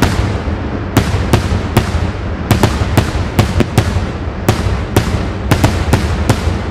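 Daytime fireworks bursting in the air: a rapid, irregular string of sharp bangs, about two or three a second, over a continuous low rumble.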